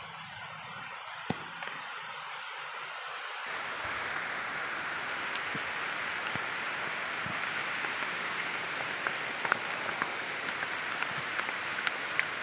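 Food frying in hot oil in a pan: a steady sizzle scattered with small pops and crackles, growing louder about three seconds in.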